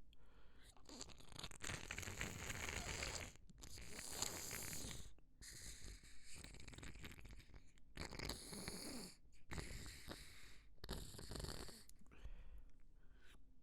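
A person blowing a runny, congested nose: several long, forceful blows of air in a row, with short breaks between them.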